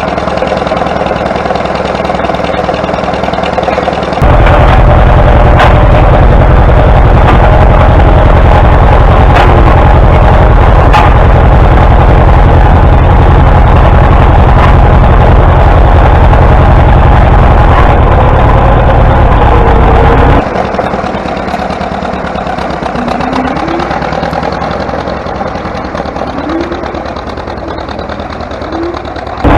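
Tractor engine running steadily. It gets abruptly louder, with a heavier low rumble, about four seconds in, and drops back to a quieter run about twenty seconds in.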